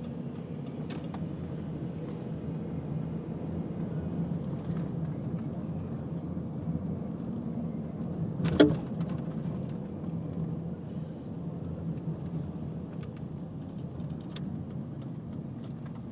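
Steady road and engine hum inside a moving vehicle's cabin, with small scattered clicks and rattles and one sharp knock about halfway through.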